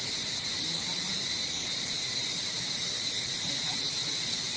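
Steady chorus of insects in the trees, a continuous high-pitched drone.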